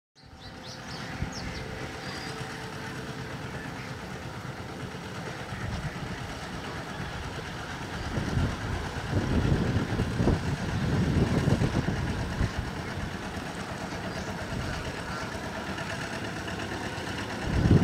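A small engine running steadily, most likely the engine of the wooden country boat, with louder low rumbling surges around the middle and again near the end.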